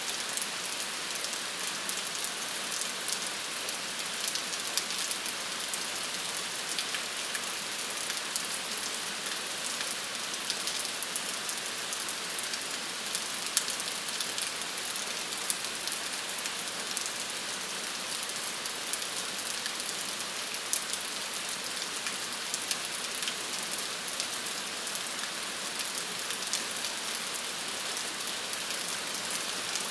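Steady rain falling on hard surfaces, a dense even hiss with many small drop ticks scattered through it.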